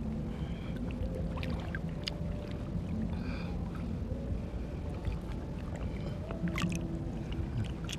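Shallow seawater sloshing and lapping close by as a person wades and moves a hand through it, with a few light clicks.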